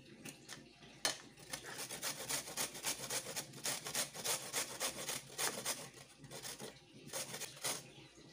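Beetroot being grated on a new metal box grater: a steady run of rasping strokes, about two or three a second, from about a second in until near the end.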